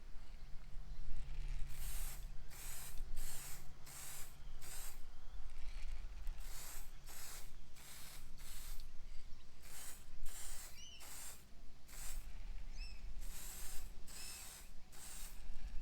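Rhythmic back-and-forth abrasive strokes by hand on a chisel, about two strokes a second in runs with short pauses between, and a few faint high squeaks in the later strokes.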